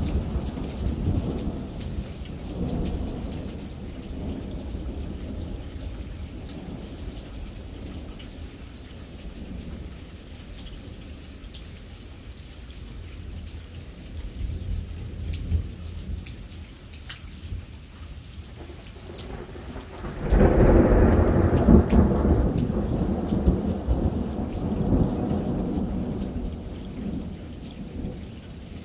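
Thunder rumbling over steady rain, with a loud thunderclap about twenty seconds in that rolls on for several seconds before fading.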